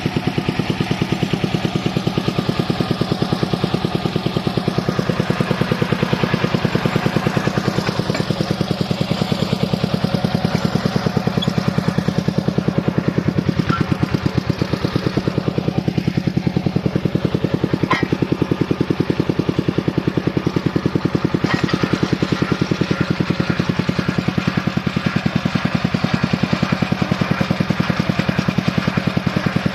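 Engine of a drilling rig running steadily, with a fast, even firing pulse. A couple of short sharp clicks come about halfway through.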